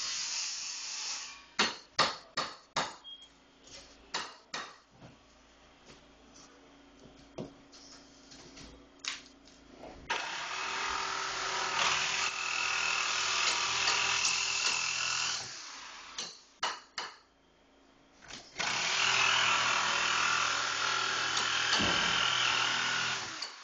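A string of sharp knocks in the first few seconds, then a power tool running hard in two long stretches of about five seconds each, with a few knocks between them, as demolition work opens up a brick wall.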